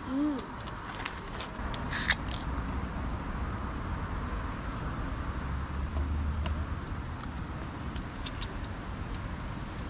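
A steady low background rumble with a short, sharp clatter about two seconds in and a few light clicks later on. A brief hummed 'mm' comes right at the start.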